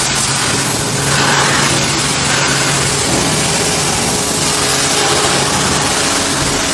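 Total TGT11246 160-bar pressure washer running steadily: a motor-and-pump hum under the continuous hiss of the water jet.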